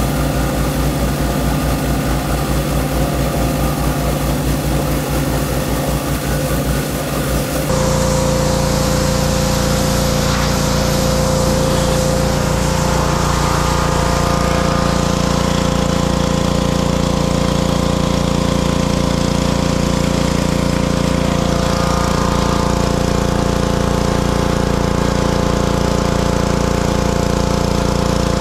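Several small gasoline pressure washer engines running at once under the hiss of water spray. About eight seconds in the sound switches to a single washer running close by, a steady engine hum with a hiss of spray.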